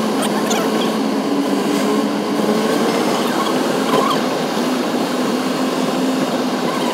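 Steady road noise and engine hum heard from inside a car driving through a road tunnel, the tunnel walls making it loud and enveloping.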